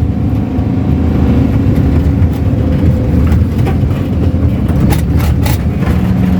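Steady low rumble of a moving car, engine and road noise, with a few short knocks or rattles.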